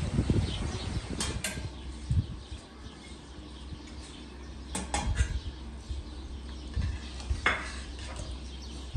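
Kitchenware clinking as food is prepared: a few separate knocks of a utensil against pots and dishes.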